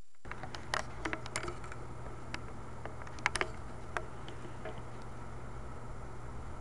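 Chihuahua mother licking her newborn puppy: scattered wet clicks and smacks that die away after about four seconds, over a steady low hum.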